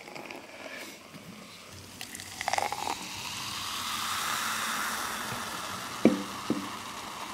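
Carbonated Ramune soda poured from a can into a glass, foaming up: a fizzing hiss that swells and then slowly fades, with two light clicks near the end.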